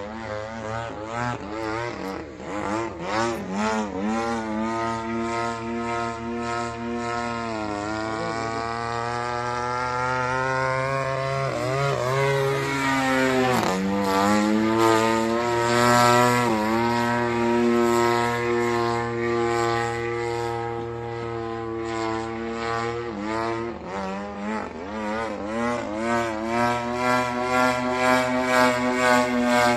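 Radio-controlled aerobatic propeller plane flying overhead, its motor-and-propeller drone rising and falling in pitch through its manoeuvres, with a long falling sweep about halfway through.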